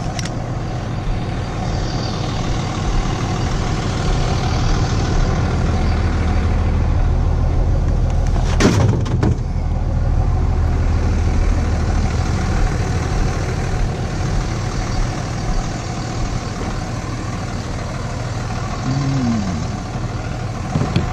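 Truck engine idling steadily, with a single sharp clank about nine seconds in.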